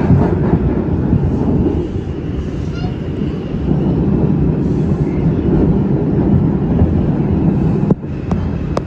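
New York City subway car running between stations: a steady low rumble of wheels on the rails and the car's running gear, with a faint squeal in the first few seconds and a few sharp clicks near the end.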